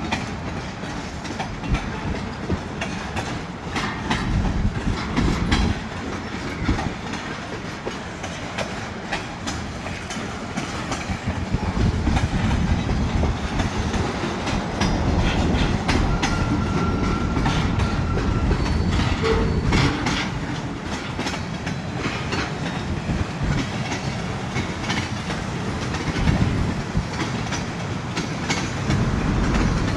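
Freight train cars rolling past, the wheels clicking over rail joints over a steady rumble, getting louder about twelve seconds in.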